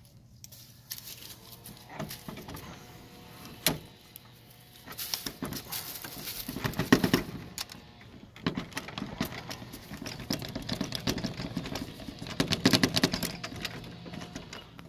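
Handling noise from a rifle being worked in a plastic wall mount: scattered sharp clicks, one louder click about four seconds in, then runs of rattling and clacking in the middle and again near the end.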